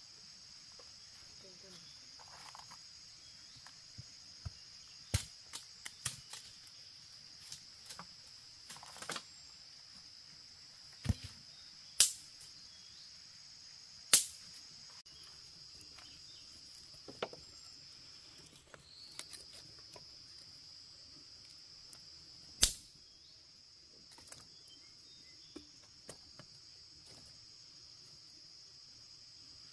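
Steady high-pitched drone of insects, with a dozen or so sharp cracks or snaps scattered through it, a few of them much louder than the rest.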